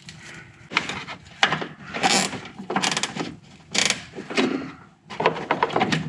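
Plastic zip tie being pulled tight in a series of short ratcheting rasps, about seven pulls of uneven length, as it cinches an LED headlight driver in place.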